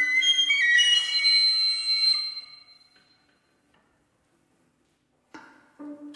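Flute and other instruments playing sparse contemporary chamber music: high notes climb in steps over a held lower tone, then fade out about two and a half seconds in. A couple of seconds of silence follow, then a sharp attack, and playing resumes near the end.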